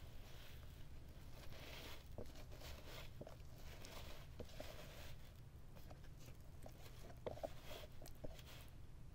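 Faint rustling and crinkling of dry paper confetti, glitter and hair being scooped by hand out of a clear bagless vacuum dust bin, with scattered small clicks.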